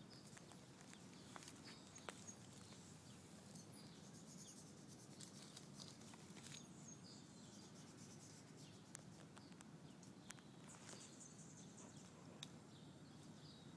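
Near silence: faint outdoor background with a few soft ticks.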